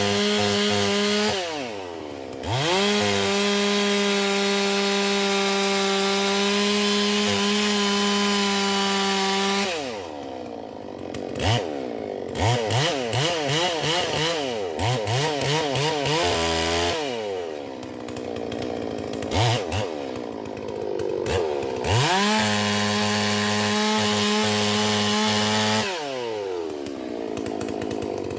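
Holzfforma G444 two-stroke chainsaw, a Stihl MS440 clone, held at full throttle in long steady runs. It drops back to idle between them, with a string of quick throttle blips in the middle stretch.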